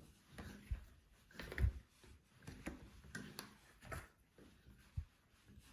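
Scattered light clicks and knocks of shower valve trim parts being handled and fitted together, with a couple of duller thumps.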